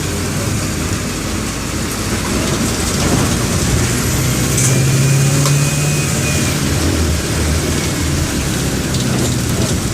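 Mercedes-Benz OF-1418 bus's four-cylinder turbo-diesel engine (OM 904 LA) running under way. It grows louder from about three to six seconds in, with a faint high whine over it, then eases off.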